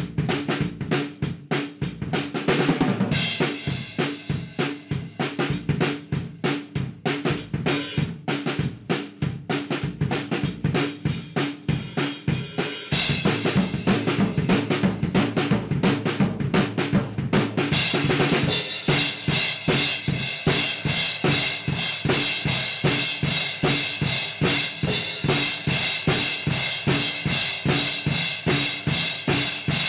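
Acoustic drum kit played alone: a driving beat of bass drum, snare and cymbals. The part gets fuller and louder about 13 seconds in, and from about 18 seconds in the cymbals ring on continuously over the beat.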